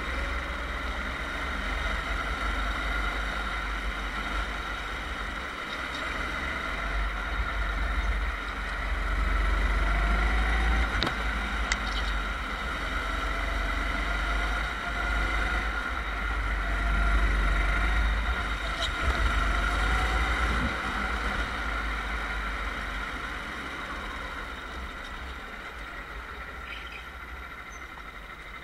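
Go-kart engine running at speed, its pitch rising and falling with the throttle, with wind rumbling over the onboard camera's microphone. It dies down over the last few seconds as the kart slows.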